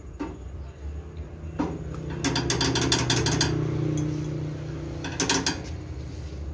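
Small rice and corn milling machine (Richi KD 350) running: a steady mechanical hum starts about a second and a half in, with two spells of rapid rattling clatter.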